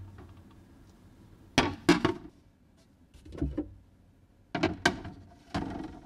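Lidded glass food-storage containers being set down and shifted on refrigerator shelves: a handful of knocks and clinks, some in quick pairs.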